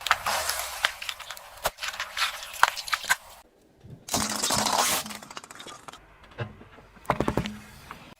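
Crunchy objects cracking and crackling as a car tyre rolls over and crushes them, in several runs of sharp cracks separated by abrupt breaks.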